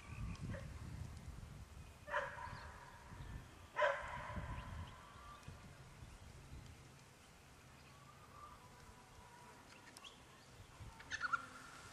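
Two short barks about two seconds apart from a kelpie cross herding goats; the second is louder.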